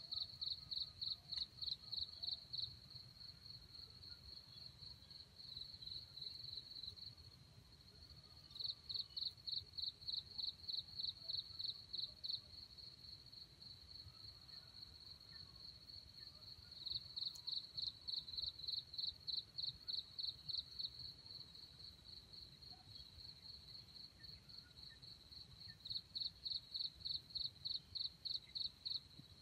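An insect chirping high and steadily: bursts of rapid pulses, about four or five a second, each burst lasting a few seconds and coming four times, with a fainter continuous trill in between.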